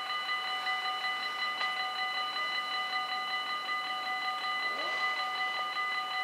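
Electric warning bells of a Dutch automatic half-barrier level crossing, several bells ringing together in a steady, continuous peal at a few fixed pitches, signalling that a train is approaching.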